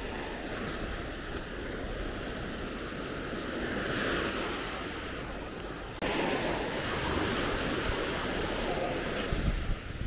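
Baltic Sea surf washing onto the beach, a steady noisy wash with wind rumbling on the microphone. The wash steps up in loudness suddenly about six seconds in.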